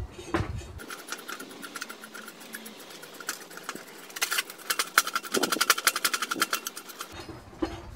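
M24 high-tensile threaded steel bar being screwed by hand through the nut welded onto a steel box-section strongback: a fast run of metallic clicks and rattles from the threads and bar, busiest in the second half.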